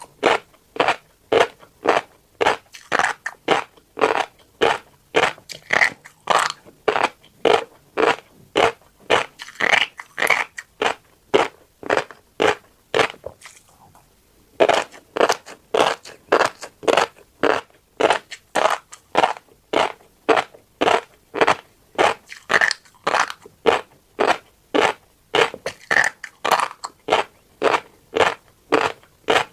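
Close-miked chewing of tiny black seeds: a steady rhythm of crunches, about two to three a second, with a short pause about halfway through.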